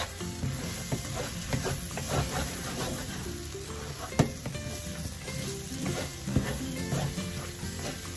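A wooden spatula stirs and scrapes egg fried brown rice around a sizzling frying pan, with a sharp knock about four seconds in.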